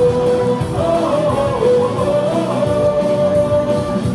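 Stadium cheer music playing over the ballpark speakers, with the crowd singing the melody along with it; the tune holds long notes and steps up and down between them.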